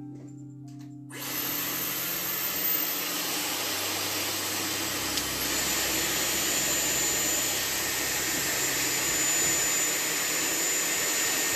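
Dyson Airwrap hair styler blowing air through its curling barrel. A loud, steady rush of air comes in about a second in, and a thin high whine from the motor joins about halfway.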